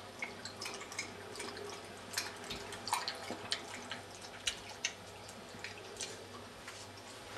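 A dog lapping water from a plastic bowl: irregular wet clicks and slaps of the tongue, a few a second.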